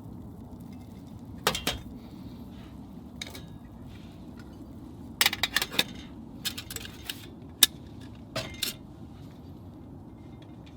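Dishes and metal utensils clinking as they are handled: a few sharp clinks, then a quick cluster of them about halfway through and a few more later, over a steady low background noise.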